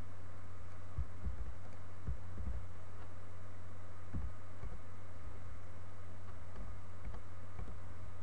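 Steady low electrical hum, with scattered soft thuds of keys being typed on a computer keyboard.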